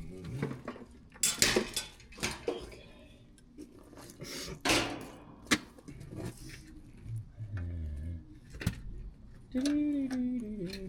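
Metal tools and parts clinking and knocking as they are handled, a string of separate sharp clanks. A short voice is heard near the end.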